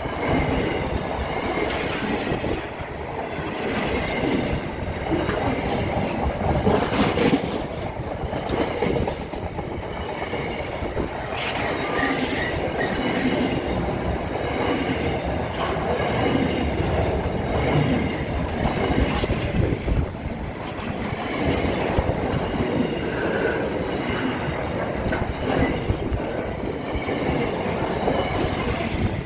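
Freight train of empty container flat wagons rolling past close by, its wheels clicking over the rail joints and the wagons rattling. A few brief wheel squeals come through.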